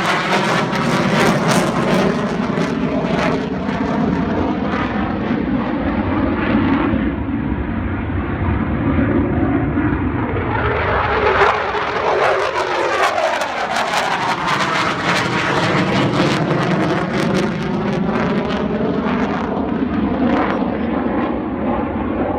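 Fighter jet engines heard as a military jet flies past, a continuous loud noise with tones that sweep down and then back up as it goes by, loudest about halfway through.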